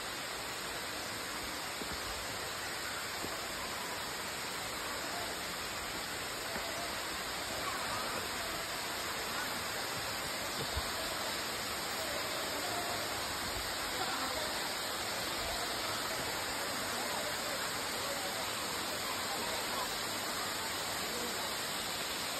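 Waterfall, water cascading down stepped rock ledges with a steady, even rush.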